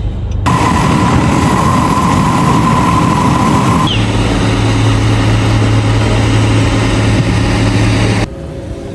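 Heavy construction machinery running, in short cut-together clips: a loud rushing noise with a steady whine, then a steady low hum, then a quieter machine drone near the end.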